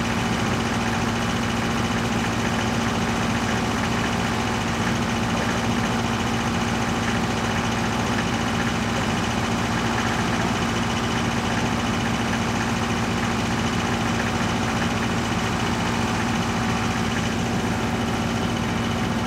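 Mini excavator's engine idling steadily, an even hum with no change in speed.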